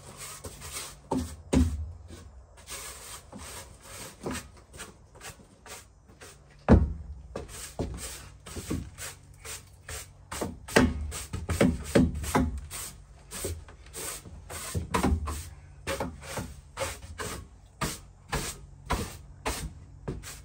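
Irregular scraping and knocking, a few strokes a second, with heavier thumps now and then; the loudest is about a third of the way in.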